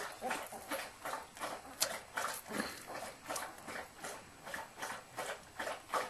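Flat-coated retriever mother licking her newborn puppies clean: a steady run of short, wet licking strokes, about three a second.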